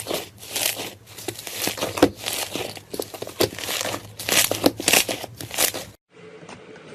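Slime being squeezed and worked by hand, giving a dense, irregular run of crackling, crinkling pops. The sound cuts off abruptly near the end.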